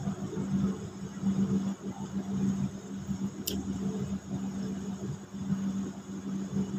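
Steady low background rumble under a constant low hum, with one sharp click about three and a half seconds in.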